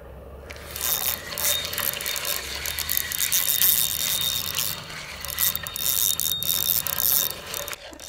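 Fishing reel ratcheting in a fast, dense run of clicks as a fish on a bottom rig is hooked and played. It starts about half a second in.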